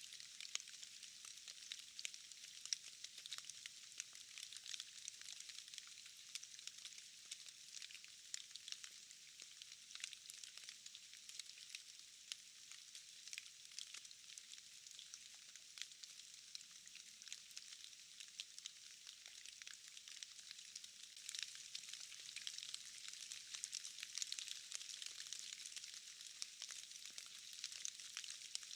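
Faint, steady rain: an even hiss thick with tiny ticks of falling drops, growing a little louder about twenty seconds in. No thunder.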